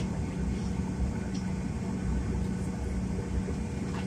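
Steady low hum and rumble inside an airliner cabin, the jet engines idling as the plane taxis to the gate.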